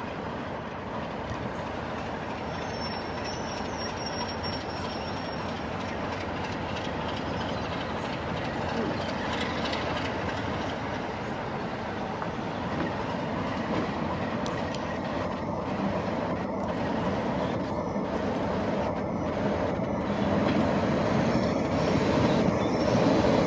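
Diesel locomotive engine running as the locomotive approaches slowly at low speed, steadily growing louder as it draws near.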